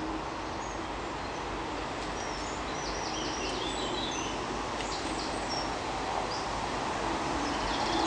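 European robins singing: short, high, thin, varied phrases, coming mostly from about two seconds in to past the middle. A steady hiss of outdoor background noise runs underneath.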